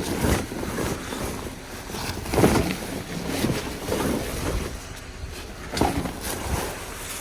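Snow being cleared off something by hand: a run of uneven scraping and brushing swishes.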